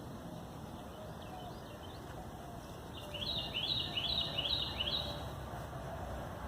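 A songbird singing a quick run of about six repeated slurred notes about three seconds in, over a steady low outdoor rumble.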